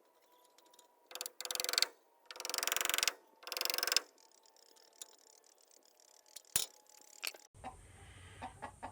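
Rapid mechanical ratcheting clicks in three bursts of under a second each, then a few faint ticks.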